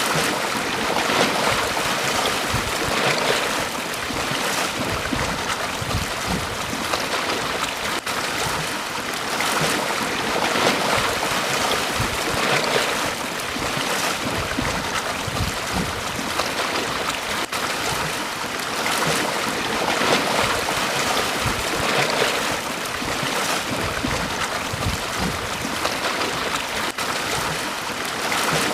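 Small waves breaking and washing up a beach: a steady surf hiss that swells every couple of seconds.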